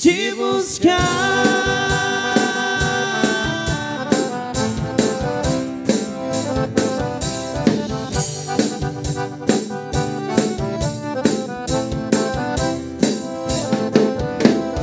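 Live sertanejo band playing an instrumental passage between sung lines: a long held note, then a steady drum-kit beat under accordion and acoustic guitar chords.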